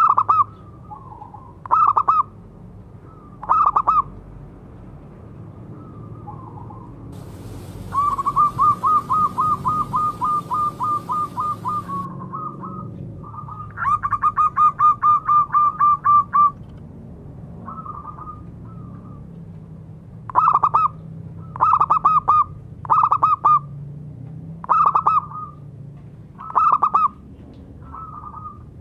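Zebra dove (perkutut) cooing. Short, loud, clipped coo phrases come every second or two, broken by two fast runs of rapid repeated notes, about five a second, starting about eight and fourteen seconds in.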